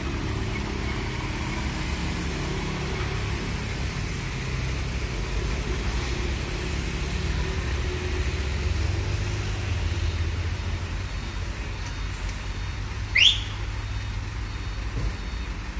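Heavy diesel truck engines running at idle, a steady low rumble that grows a little louder for a few seconds around the middle. Near the end comes one short, loud, sharply rising whistle.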